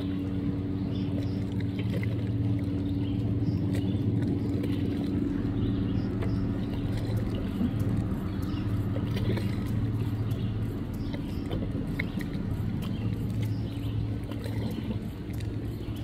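Boat motor running steadily, a constant low hum.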